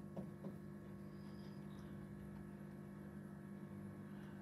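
Low, steady electrical hum made of several held tones, with two faint clicks in the first half second.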